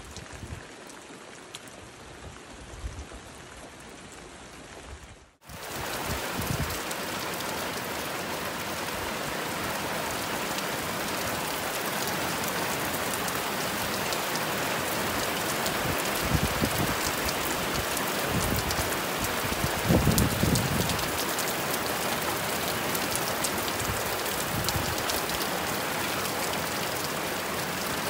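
Heavy downpour: a dense, steady hiss of rain pelting foliage and flooded standing water. It is fainter for the first five seconds, then after an abrupt cut the rain is much louder and stays that way.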